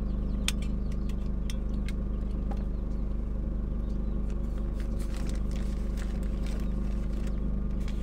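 A steady low machine hum runs underneath, with scattered light clicks and taps as tools and a plastic bag of wire are handled on a workbench.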